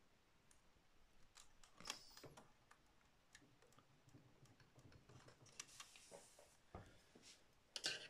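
Faint clicks and light rustling of fingers working at a plastic wiring connector and its twisted wires on an all-in-one PC's metal chassis, trying to unplug the power cable. There is a sharper click about two seconds in and a few more near the end.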